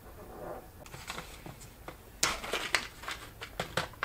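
Paper and plastic packaging being handled, starting with soft rustling and then, about halfway through, a run of sharp, irregular crinkles and clicks.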